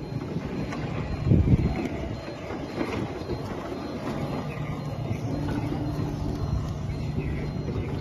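Robot stretch wrapper driving around a pallet while wrapping it, its electric drive running over rough pavement. There is a brief low rumble about a second in, and a steady low hum from about halfway through.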